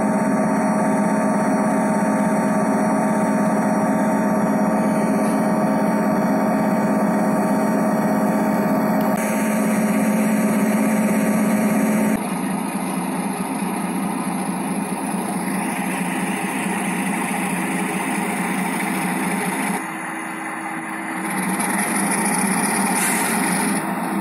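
Diesel locomotive engine sound running steadily, with a constant low hum. It changes abruptly about 12 seconds in and dips briefly about 20 seconds in.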